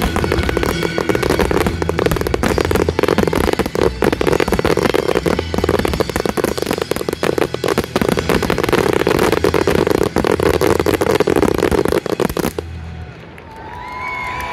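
Finale barrage of display fireworks, a dense crackle of bangs over loud accompanying music; fireworks and music cut off together about twelve and a half seconds in. The crowd then starts cheering and whistling near the end.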